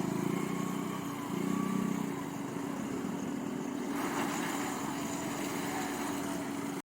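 Fiat Punto Evo's engine running steadily at low revs, its note swelling briefly about a second and a half in. The sound cuts off suddenly near the end.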